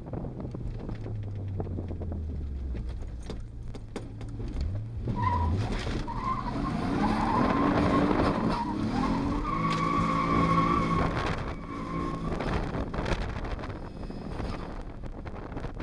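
Nissan 180SX's RB25DET turbocharged straight-six, heard from inside the cabin: running low for the first few seconds, then about five seconds in the revs climb hard and it gets much louder. A steady high whine sits over the loudest part before the engine eases off near the end.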